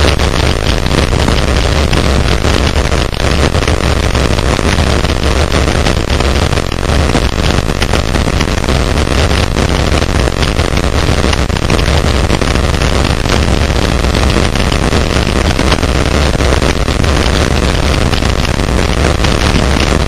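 Heavy, steady wind rumble on a GoPro camera's microphone during a fast mountain-bike descent of a dirt trail, with a constant fine clatter from the tyres and bike rattling over the ground.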